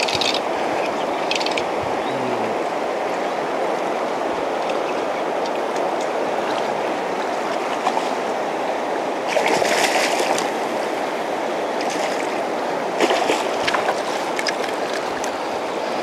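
Fast river current rushing steadily, with two short bursts of splashing about nine and thirteen seconds in as a hooked trout thrashes at the surface while being played on a fly rod.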